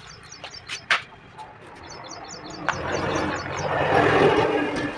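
Compressed air hissing from an air-hose nozzle, starting about two and a half seconds in, swelling, then easing off near the end. A sharp click about a second in, and small birds chirping over and over.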